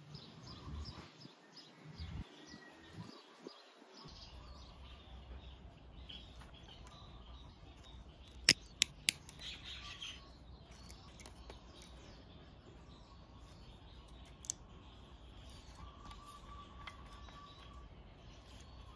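Hand tools working on a scooter engine: faint handling and scraping, then three sharp metal clicks close together about eight and a half seconds in. Birds chirp faintly in the background.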